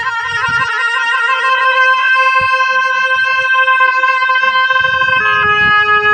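A reed wind instrument with a shawm-like tone plays a wavering, trilled melody, then holds one long steady note for about three seconds before stepping down in pitch near the end. Low rumbling thumps sound underneath.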